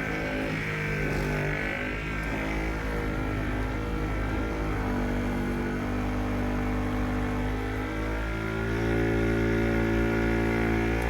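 Electric mechanical polisher running with a buffing mop on a car headlight, a steady motor whine whose pitch shifts twice as the load changes, getting a little louder for the last few seconds.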